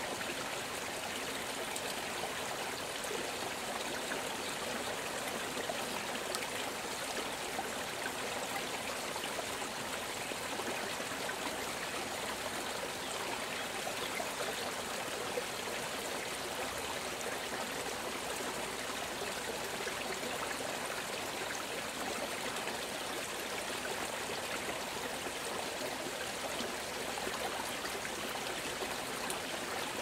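A small stream flowing with a steady murmur.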